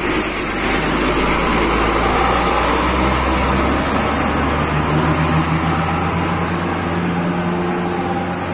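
A large diesel coach bus engine running loudly as the bus passes close by and pulls away, its engine note climbing about halfway through as it speeds up, then starting to fade near the end.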